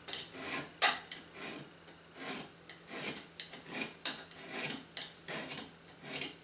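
Hand file rasping against the edge of a small part in about ten even back-and-forth strokes, roughly one every two-thirds of a second, taking a little material off so the part is wide enough to accept a linear rail.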